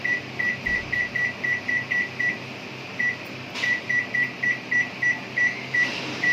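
Microwave oven control panel beeping as the cooking time is set: a long run of short, high beeps, about three a second, with a brief pause about halfway through.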